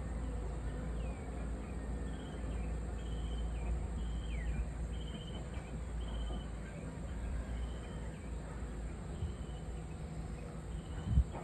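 Outdoor afternoon ambience over tropical forest: short, high trilled chirps repeating about once a second, with a couple of falling whistled notes, over a steady low rumble. A single thump comes near the end.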